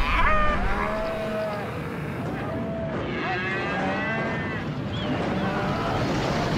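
Cattle mooing: a few drawn-out calls over a steady hiss.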